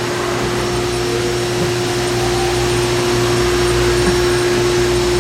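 Haas VF-2 CNC vertical milling center running with a steady, even mechanical hum and a single constant whining tone.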